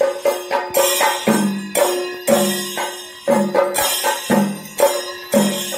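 Chenda melam, the Kerala temple percussion ensemble: chenda drums beaten in a driving rhythm with ilathalam hand cymbals clashing, strong accented strokes about twice a second.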